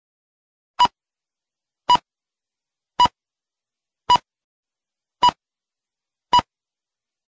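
Film-leader countdown beeps: six short, identical electronic beeps, one about every second.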